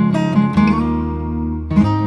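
Background music on acoustic guitar: plucked notes, a chord left ringing in the middle, then fresh notes picked near the end.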